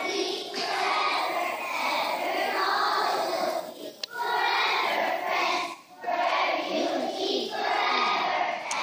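A group of children's voices together in unison, in phrases broken by short pauses about four and six seconds in.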